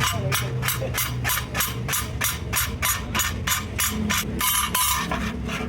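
Hammer striking in a fast, even rhythm, about three blows a second, with a stretch of hiss near the end.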